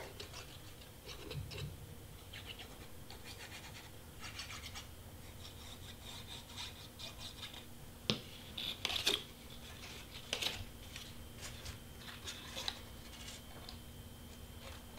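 Faint scratching and rubbing of stiff cardstock being handled and glued, with a few sharp taps in the second half.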